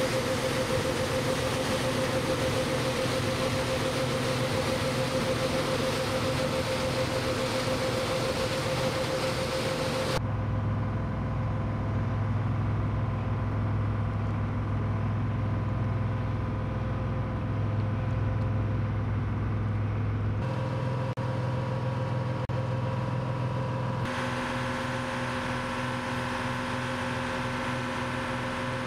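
Boat engines running steadily. At first the engine hum comes with water churning in a propeller wash. About ten seconds in it changes to a deep, low engine hum, and it changes again at cuts about twenty and twenty-four seconds in.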